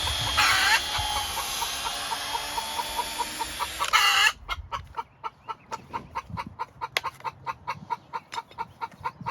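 A power drill runs for about four seconds, boring a hole. A chicken squawks twice over it, then clucks rapidly and steadily, angry because a broody hen is occupying a nesting box.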